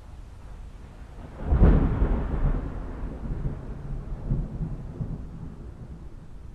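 A thunderclap about one and a half seconds in, rolling on into rumbles that fade over the next few seconds, over a steady low background.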